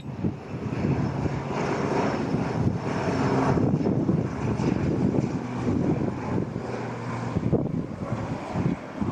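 Propeller airplane flying by, its engine and propeller drone growing louder to a peak a few seconds in, then easing off.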